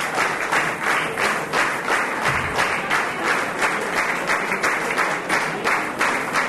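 Theatre audience clapping in unison to a steady beat, about three claps a second.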